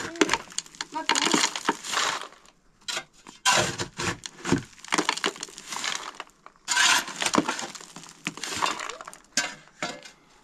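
Steel shovel blade scraping and digging into loose stony, chalky soil and gravel, in about eight gritty strokes that stop near the end.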